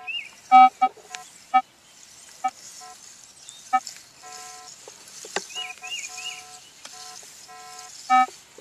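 Minelab E-Trac metal detector giving short, broken beeps of one pitch as the coil is swept back and forth over a target. It sounds off irregularly, loudest about half a second in and near the end, on a target that reads close to a nickel. A bird chirps three times midway.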